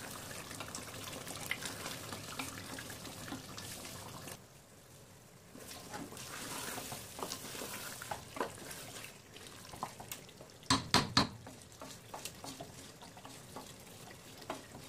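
Thick mutton curry sizzling and squelching as it is stirred and scraped around an aluminium pressure-cooker pot while being fried down, with small scraping clicks throughout. A quick run of loud knocks comes about eleven seconds in.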